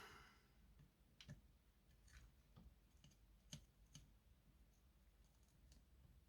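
Near silence with about six faint, scattered clicks and taps of small tools and solder braid being picked up and handled on a soldering bench.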